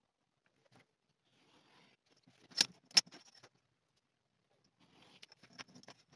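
A utility knife cutting leather along a steel ruler on a cutting mat, with faint scraping. Two sharp clicks of tools knocking on the mat come a little under halfway through, and a run of small clicks and scraping near the end as the blade runs along the ruler.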